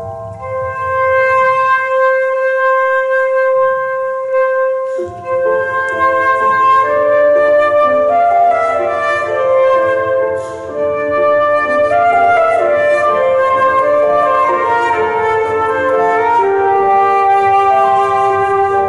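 Concert flute holding one long note, then playing a melody over piano accompaniment that comes in about five seconds in.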